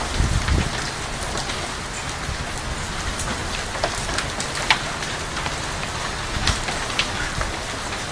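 Steady heavy rain pouring onto a swimming pool and patio, a continuous hiss with a few scattered sharp taps of drops striking hard surfaces.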